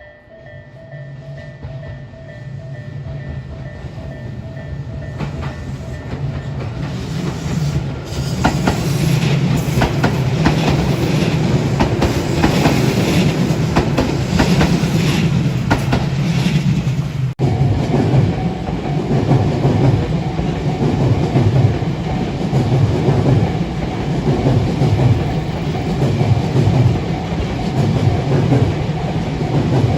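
Electric commuter train drawing closer and passing, growing louder over the first several seconds, then the wheels clicking rhythmically over the rail joints. There is a brief dropout a little past halfway.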